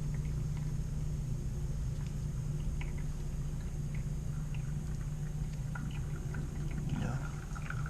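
A steady low machine hum, with faint scattered ticks and liquid gurgling as POE oil is sucked out of a scroll compressor through a hose into a vacuum-evacuated pump-sprayer oil extractor.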